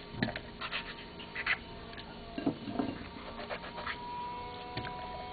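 Light, scattered clicks and taps as a knife cuts through a tomato and the pieces drop into a plastic blender jar.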